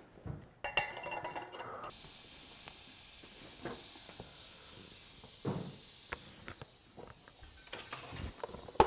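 TIG welding arc on a steel exhaust header pipe joint, hissing steadily for about six seconds. It starts about two seconds in and stops near the end. A few light clicks and knocks of pipe handling come before and during it.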